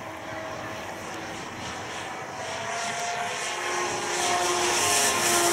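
Electric motors and propellers of a radio-controlled Cessna 336 Skymaster model in flight: a steady propeller drone whose pitch shifts slightly, growing louder as the plane comes closer.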